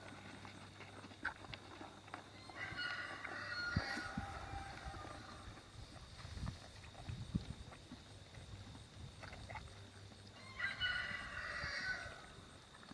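A rooster crowing twice, about eight seconds apart, with scattered low thuds in between.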